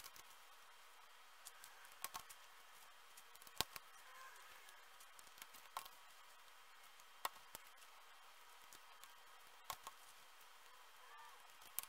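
Near silence broken by faint, scattered sharp clicks and crackles from dry corn husk strips being handled and pinned onto a cone.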